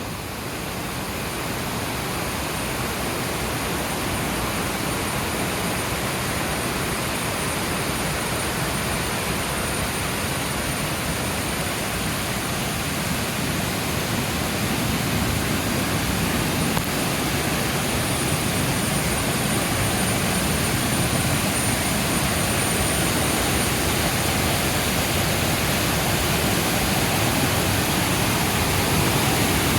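Waterfall rushing: a steady, even roar of falling water. A faint high thin whine comes and goes twice over it.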